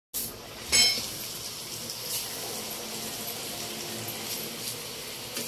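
Chaklis of rice-flour dough deep-frying in hot oil: a steady sizzling hiss, with a sharp, louder burst about a second in as fresh dough goes into the oil.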